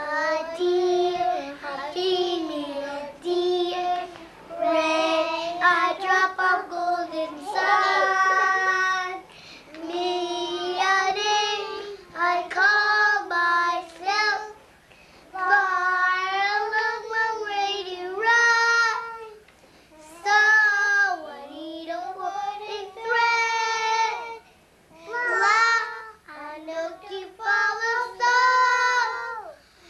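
Young children singing a song together, unaccompanied, in short phrases with brief pauses between them.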